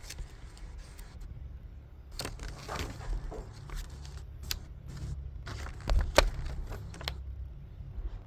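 Paper instruction leaflets and the phone box being handled: scattered small rustles and clicks over a low steady rumble, with a louder knock about six seconds in.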